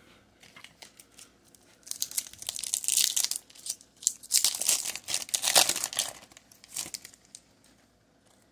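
Foil Pokémon booster pack wrapper crinkling and being torn open by hand, in two rustling bursts: one about two seconds in and a longer one about four seconds in.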